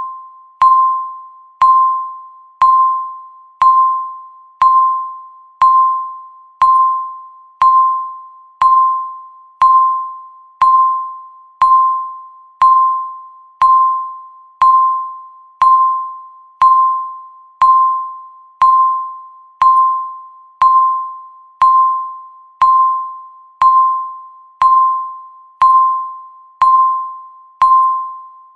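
Countdown timer tick sound: a short, sharp electronic tick with a ringing tone, once every second, each one dying away before the next.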